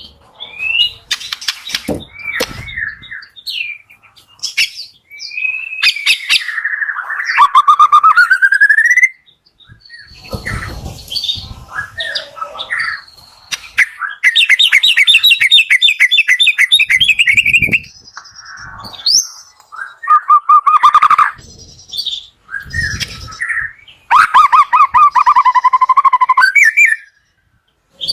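White-rumped shama (murai batu) singing loudly in varied phrases, with sweeping whistled notes and long rapid trills separated by short pauses. This kind of song is played as a trigger recording to get a reluctant murai to start singing.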